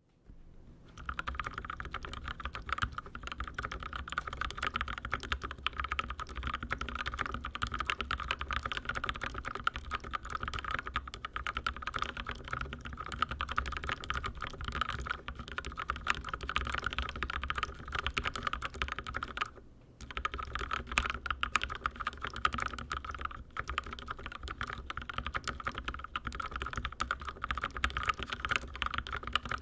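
Steady, fast typing on a custom mechanical keyboard: linear switches with UHMWPE stems in Gateron Milky Yellow housings, lubed with Krytox 205g0, in a YMDK 84 acrylic-case kit. The keystrokes begin about a second in and pause briefly about two-thirds of the way through.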